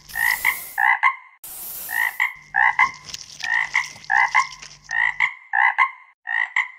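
Frogs croaking over and over in short calls, about two or three a second, with stretches of hissing noise in the first couple of seconds.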